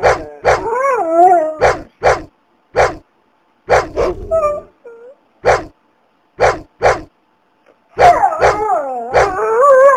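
Dog barking in a string of short, sharp barks. Drawn-out cries that bend up and down in pitch come about a second in and again near the end.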